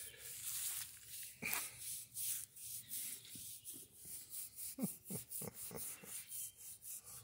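A hand rubbing and rustling against a Great Dane puppy's short coat close to the microphone, in uneven strokes.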